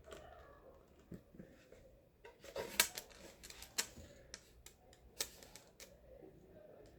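Light, irregular clicks and taps of a small object being handled and turned over.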